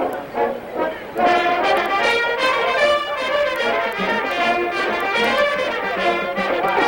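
Brass ensemble playing: short repeated notes for about the first second, then full, loud sustained chords.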